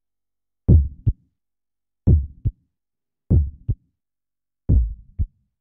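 Heartbeat sound effect in a logo intro sting: four deep double thumps, each a heavy beat followed by a lighter one, spaced a little over a second apart.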